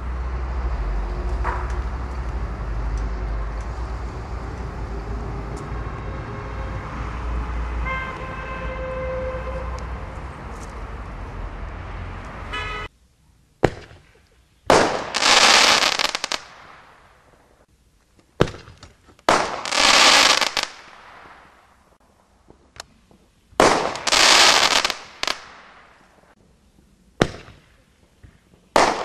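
Steady background rumble that cuts off suddenly about halfway. Then crackling artillery shells go off four times: each is a sharp pop followed about a second later by a dense burst of crackling lasting about a second and a half.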